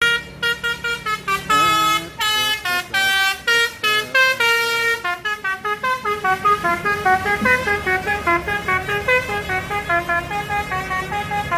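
A bus's Basuri telolet horn playing a tune of short pitched toots. It starts with longer, spaced notes, then about five seconds in breaks into a quick run of about four notes a second, over a low steady hum.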